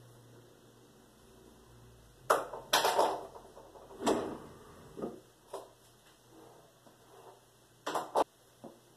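Knocks and clattering bumps of things being handled at a bathroom vanity with a tiled countertop and a drawer: a quick cluster about two to three seconds in, single bumps after that, and a close pair near the end.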